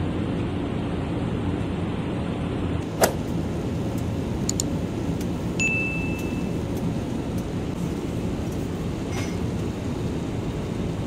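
Steady low cabin noise inside an Airbus A320 airliner. There is a sharp click about three seconds in, and a single short, high cabin chime about halfway through.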